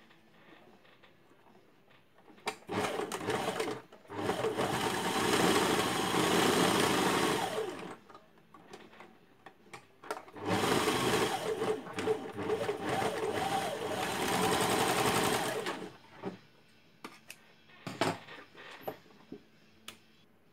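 Serger (overlock machine) stitching and trimming the ends of spandex bikini pieces. It runs in two long stretches of about four and five seconds, with a few short bursts before them and clicks of handling the fabric between and after.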